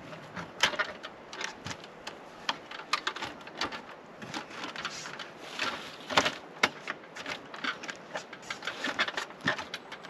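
An irregular run of clicks, taps and knocks, with a few sharper, louder knocks about half a second in, around six seconds in and near the end.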